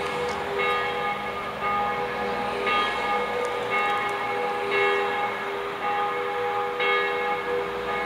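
Church bells ringing, with strokes about once a second, alternating louder and softer, whose long ringing tones overlap.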